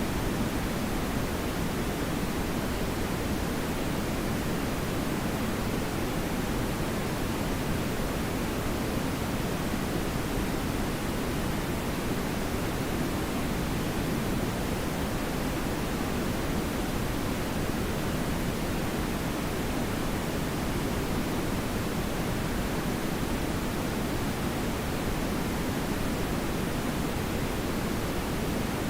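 Steady TV static: an even hiss with no breaks or changes, heavier in the low and middle range than at the top.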